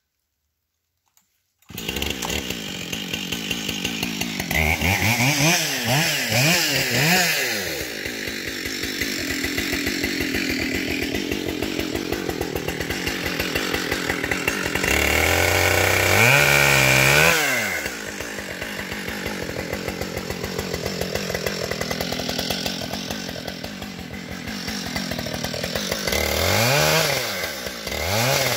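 Chainsaw cutting up a downed ash tree. It comes in abruptly about two seconds in, is revved up and down several times, then runs steadily under load, rising to full speed twice more, around the middle and near the end.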